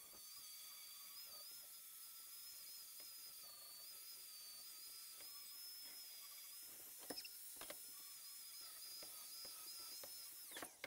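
Angle grinder with an 80-grit flap disc grinding the end of 2-inch square steel tubing, heard very faintly. A steady high whine wavers slightly as the disc loads, then winds down just before the end as the grinder is switched off.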